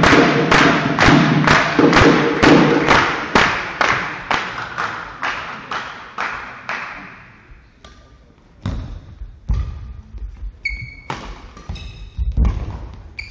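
Spectators clapping in unison at about three claps a second, fading out over the first seven seconds. Then a badminton rally: scattered sharp racket hits on the shuttlecock and brief squeaks of shoes on the court floor.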